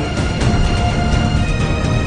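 Instrumental music with held notes that change a few times.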